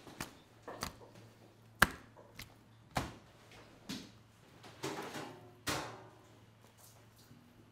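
Butterflied trout being handled and laid down on a stainless steel tray: a run of sharp wet slaps and knocks, the loudest about two seconds in. Then a couple of longer rustling swishes as red pepper is scooped from a plastic tub and scattered, all over a faint steady hum.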